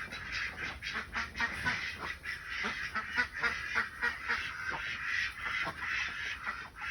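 A flock of domestic ducks quacking over a feed of table scraps, with many short calls overlapping in a continuous chatter.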